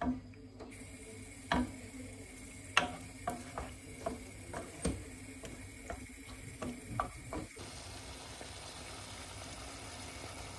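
Utensils clinking and knocking against cookware in about a dozen irregular strikes, over a steady low hum. The knocks stop about three quarters of the way through, leaving a soft even hiss.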